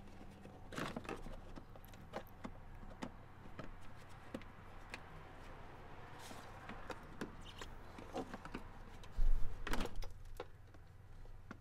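Plastic push clips clicking and a plastic splash panel knocking and scraping as it is pried and pulled off by hand, with a louder clatter of knocks near the end as the panel comes free.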